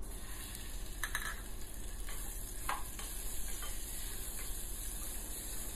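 Minced pork sizzling in hot garlic oil in a small nonstick saucepan, the sizzle starting as the pork goes in, while a spatula stirs it with a few light scrapes against the pan.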